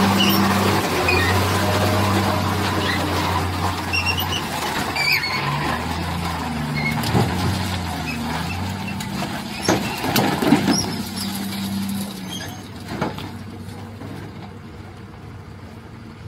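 Diesel engine of a Tata tipper truck labouring through a deep mud pit, its note rising and falling as it crawls, with a few knocks and clatters about ten seconds in. It grows fainter as the truck moves away.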